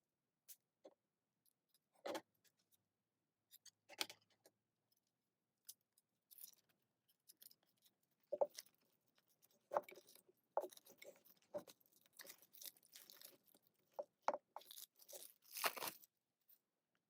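Plastic shrink wrap being torn and peeled off a CD album, with crinkling and scattered taps and clicks from handling the album box. Sparse at first, busier from about six seconds in, with the loudest crinkle near the end.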